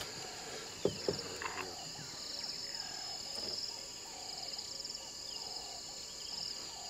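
Insects chirring in the bush: a steady high hiss with pulsing trills. Underneath, a short, slightly falling low call repeats about twice a second, and there are two sharp clicks about a second in.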